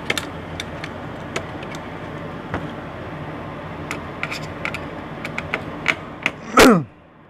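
Scattered small clicks and taps of metal and plastic laptop parts being handled as the CPU cooling heatsink and fan are fitted, over a steady background noise. Near the end, a brief loud sound falls steeply in pitch, then the background cuts off suddenly.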